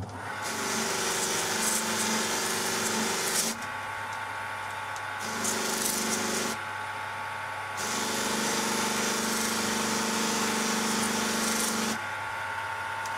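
Bench polishing motor running with a steady hum while a Benchmade Mini Griptilian knife blade is pressed against the spinning buffing wheel, polishing its bevels to a mirror. The hissing rub of steel on the wheel comes in three passes with short pauses between them, the last and longest ending near the end.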